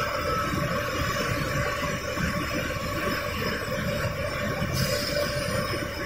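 Sugar centrifugal machine running with a steady mechanical rumble and hum. A higher hiss joins about five seconds in.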